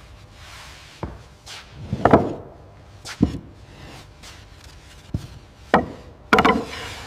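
Wooden knocks, about seven at uneven intervals, the loudest about two seconds in and a quick cluster near the end.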